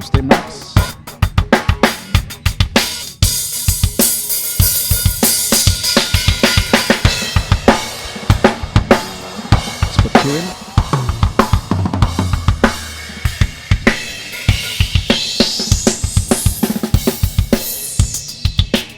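Isolated live drum kit track playing through a Calrec PQ1549-clone equaliser, with steady kick, snare, hi-hat and cymbals. Near the end a narrow band of the treble is swept up to the very top and back down.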